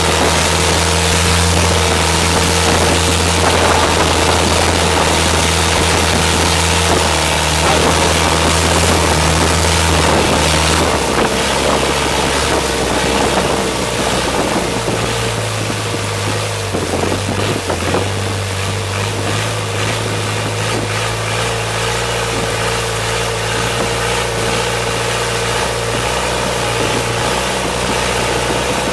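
Motorboat engine running steadily at speed, with water rushing along the hull. About eleven seconds in the engine note changes and the sound gets slightly quieter.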